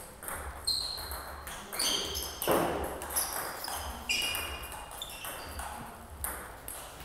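Table tennis ball striking rackets and the table: a string of short sharp clicks, one every half second to a second.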